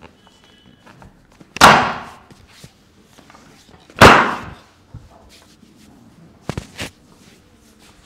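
Two loud thuds about two and a half seconds apart, each ringing out briefly: chiropractic thrusts pressing the knee down against the treatment table. A few fainter clicks follow near the end.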